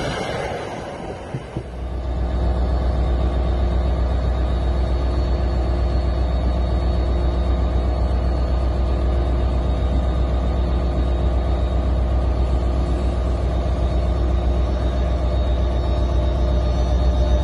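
The tail of a passing commuter train fades out. From about two seconds in comes the loud, steady low rumble of an NJ Transit PL42AC diesel locomotive's engine running close by.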